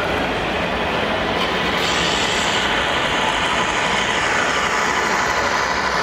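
Radio-controlled model vehicles running: steady motor and gear noise with a faint whine, over the steady din of a busy exhibition hall.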